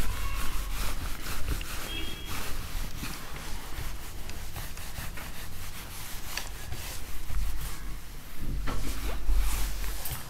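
Whiteboard eraser rubbing across a whiteboard in repeated wiping strokes, erasing marker writing.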